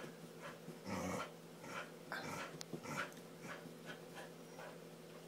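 A dog panting and breathing hard in short, irregular, faint bursts while humping.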